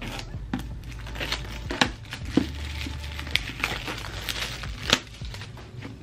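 Clear plastic shrink-wrap crinkling as it is handled and peeled off a paperback manga volume, with several sharp clicks and rustles of the book being handled.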